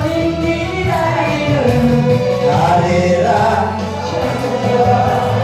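Trot backing track playing its instrumental interlude between verses: a gliding melody line over a steady beat and bass.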